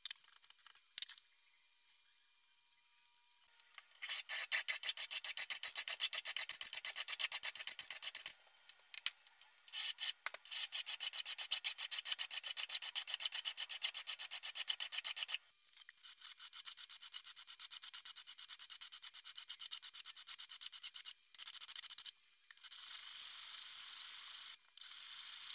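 Hand file rasping rapidly back and forth across the back strap of a Beretta 92FS aluminium-alloy frame held in a vise, cutting down the grip hump. The filing starts about four seconds in and runs in several spells of quick, even strokes with short pauses between.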